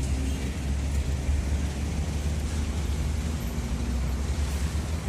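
A bus engine rumbling low as it passes, over steady road traffic noise.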